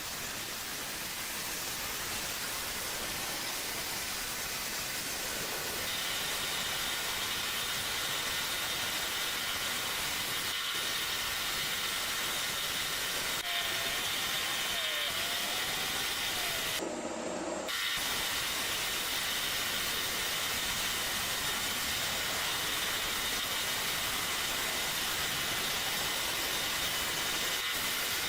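Steady hissing, with a faint high whine joining about six seconds in and a short break a little past the middle.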